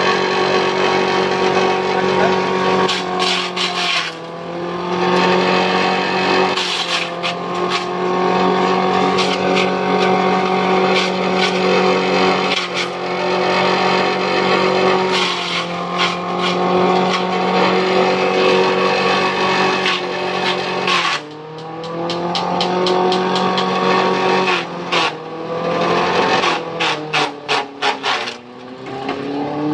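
Belt-driven forage chopper running on an electric motor taken from a Shimizu water pump: a steady motor hum whose pitch drops each time a handful of green stalks is pushed into the blades and climbs back as the motor recovers, about seven times. The dips come with rapid crackling and ticking as the stalks are cut up.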